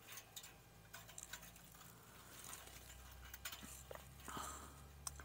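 Faint scattered ticks and light scrapes of thin metal strap clamps being handled and wrapped around a steel exhaust pipe, over a faint low steady hum.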